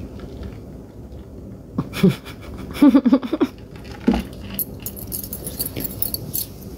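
A woman laughing hard in breathy, panting bursts, with a quick run of pulses about three seconds in.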